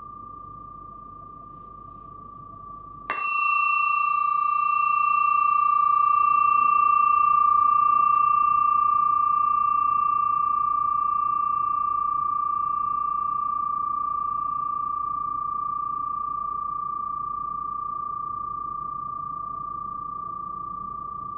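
Yin-yang bilo, a flat metal plate bell on a wooden stand, ringing with one clear, steady high tone. It is struck once about three seconds in and rings on with a long, slowly fading sustain, its fainter higher overtones dying away sooner than the main tone.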